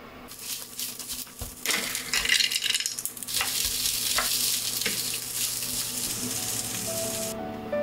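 Rice with mixed vegetables frying in butter in a hot frying pan, sizzling while a wooden spatula stirs and scrapes it around the pan. The sizzling stops suddenly near the end.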